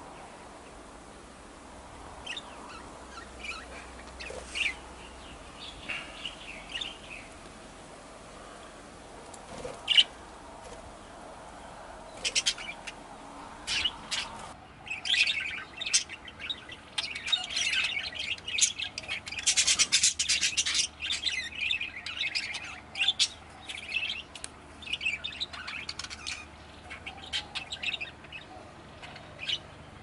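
Budgerigars chirping. Short scattered chirps at first, then from about halfway a busy run of overlapping chattering calls that is loudest a few seconds later.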